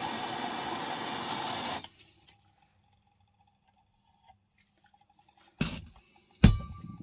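Gas blowtorch flame hissing steadily, then shut off abruptly about two seconds in. A few seconds later come two knocks, the second louder with a short metallic ring.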